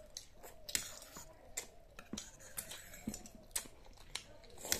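Close-up chewing and slurping of noodles, with scattered soft mouth smacks and small clicks.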